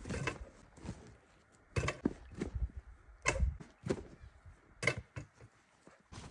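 A basketball thrown at a hoop nailed to a tree: several separate thumps and knocks a second or so apart as it strikes the hoop and the trunk and drops to the ground.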